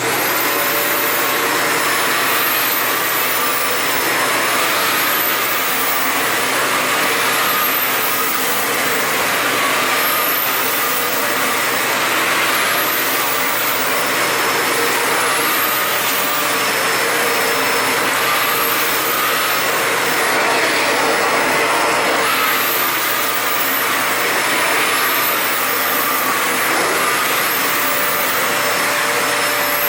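Toshiba VC-S960 vacuum cleaner switching on and running steadily, a loud rush of air with a high motor whine on top.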